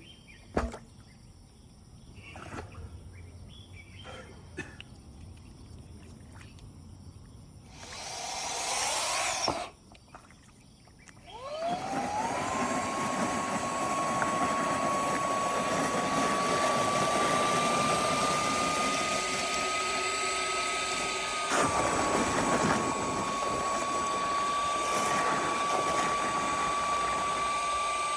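Handheld car vacuum cleaner: it runs briefly about eight seconds in and stops, then is switched on again about eleven seconds in, its motor whine rising quickly and settling into a steady high whine over the rush of air. There is a short knock about 21 seconds in. Before the first run there are only a few faint clicks.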